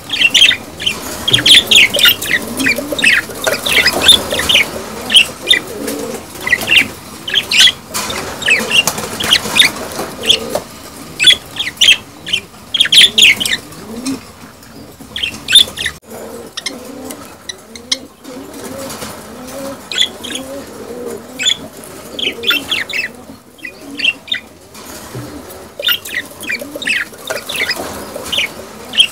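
Budgerigars chattering and warbling: a busy, irregular stream of short, high chirps, thinning out for a few seconds around the middle. This is the chatter of budgies in breeding condition, as used to encourage pairs to breed.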